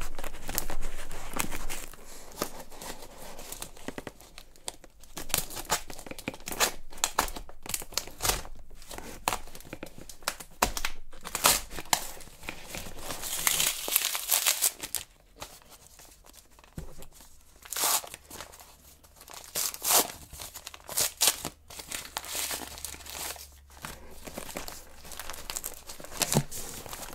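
Plastic mailer envelope crinkling and tearing as it is cut and pulled open with a folding knife, in irregular bursts of rustling. The loudest tearing comes about halfway through.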